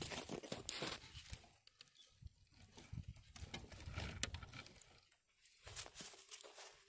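Faint, irregular crunching and light taps of footsteps on dry, gravelly dirt, with a low rumble around the middle.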